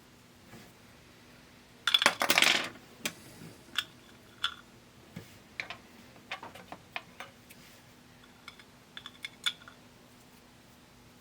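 Hard plastic pinball pop bumper caps clattering and clicking as they are handled and set down. A loud rattle comes about two seconds in, followed by scattered light clicks and taps.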